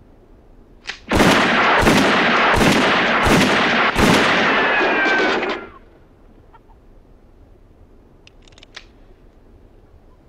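Five quick revolver shots fired in a row, evenly spaced, with a short click just before the first. Their echoes run together and die away about a second and a half after the last shot. A few faint clicks come near the end.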